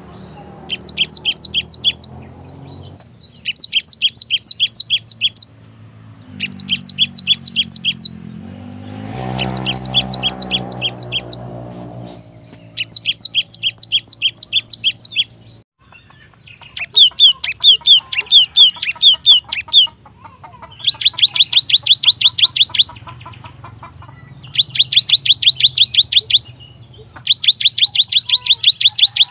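Cinereous tit (gelatik batu) singing in repeated bursts of quick two-part whistled notes, each burst lasting about two seconds with short pauses between. In the later bursts the notes come faster and run closer together.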